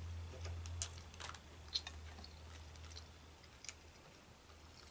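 Faint scattered clicks and crackles of seafood being handled: crawfish and crab-leg shells and a fork against a glass dish, a few sharp ticks a second or so apart. A low hum sits underneath and fades about a second and a half in.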